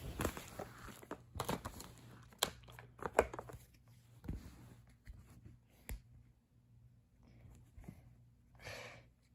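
Handling and rummaging noise: a run of small plastic clicks and taps with some rustling as phone cases and a phone are picked through. Busiest in the first few seconds, then sparser, with a brief rustle near the end.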